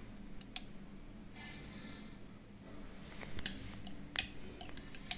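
A metal spoon clicking and clinking faintly against steel, as spoonfuls of ghee are scooped and measured out, with the sharpest clinks about three and a half and four seconds in.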